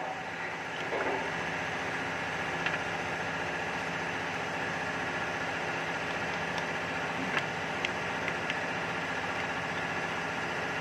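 An engine idling, a steady even hum, with a few light metallic clicks from hands and tools working in the engine bay.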